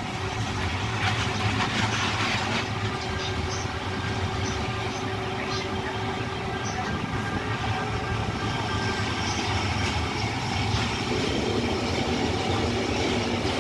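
Narrow-gauge Rhaetian Railway electric train running slowly, heard from a carriage window: a steady rumble of wheels on rail with a constant electric hum, scattered light clicks and a brief rush of noise about a second in.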